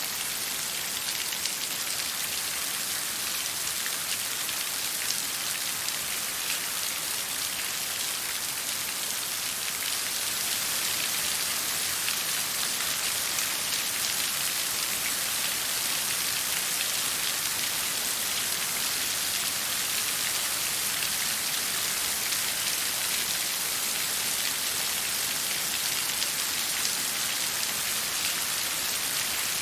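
Water: a steady, even hiss strongest in the high range, sprinkled with many fine ticks like drops striking a surface.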